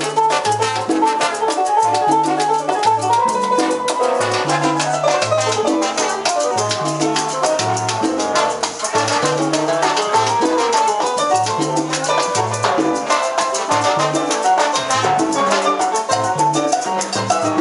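Live salsa band playing, with trombones carrying the melody over congas, timbales and a bass line that repeats the same short figure throughout.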